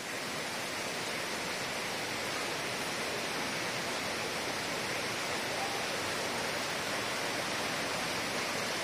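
Heavy rain pouring steadily onto trees and foliage, a constant even hiss with no breaks.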